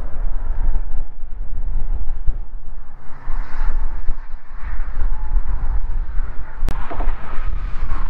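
Wind buffeting the microphone: an uneven, gusting low rumble, with one sharp click about two-thirds of the way through.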